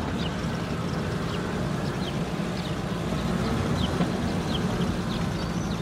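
Dump truck engine sound effect, a steady low rumble, with small birds chirping over it.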